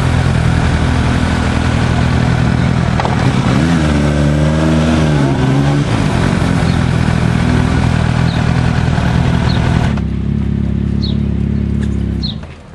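A small motor vehicle's engine running close by, its pitch rising and then falling about four seconds in, cutting off shortly before the end. Birds chirp faintly in the last few seconds.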